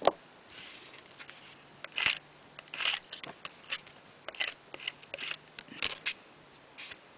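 A sharp knock, then a run of short scraping strokes about every half second to a second: a nail-stamping scraper dragging nail polish across a metal stamping plate.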